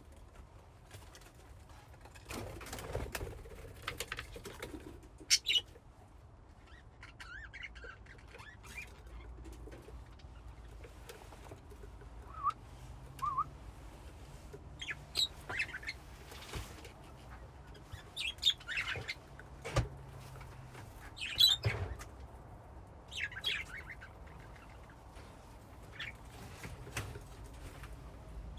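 Budgerigars in a colony cage giving scattered short chirps and warbles, with wings fluttering and a few sharp knocks. A low hum runs underneath.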